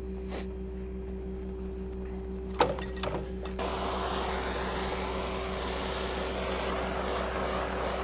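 Steady low engine hum from the pump rig truck running. There is a sharp click about two and a half seconds in, and from about three and a half seconds a steady rushing hiss joins the hum.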